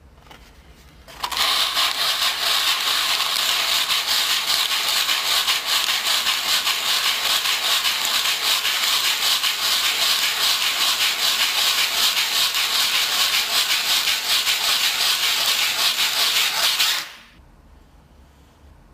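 A hand scrubbing briskly and continuously over a wooden board, rubbing a red crayon drawing off the wood. The steady, rapid rubbing noise starts about a second in and stops abruptly near the end.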